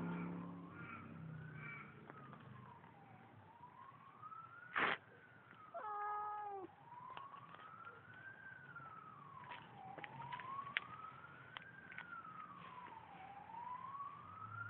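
Faint emergency siren wailing, its pitch rising and falling slowly about every three and a half seconds. About five seconds in there is one sharp click, and just after it the cat gives one short meow.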